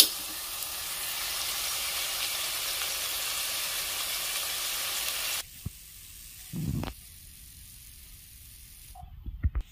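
Sesame-coated bitter gourd slices deep-frying in hot oil, a steady sizzle that cuts off abruptly about five seconds in. Then quieter room sound with a dull thud and a few light knocks near the end.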